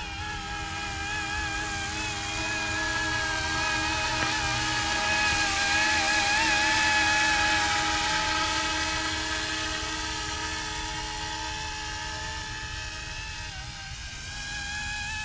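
Electric RC scale Coast Guard helicopter in flight: a high motor whine with a slight waver over the rush of the rotors. It grows louder as the helicopter passes close by about halfway through, then fades as it flies away.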